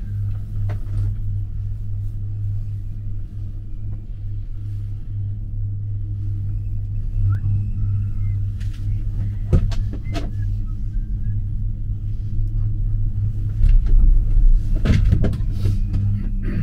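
Steady low rumble and hum of a gondola cabin riding along the haul rope, heard from inside the cabin. A few sharp knocks come about ten seconds in, and a louder cluster of knocks and rattles comes near the end.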